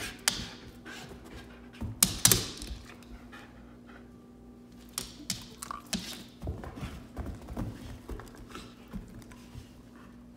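A husky moving about on a floor: a few sharp thumps in the first two or three seconds, then a run of lighter clicks and taps for several seconds.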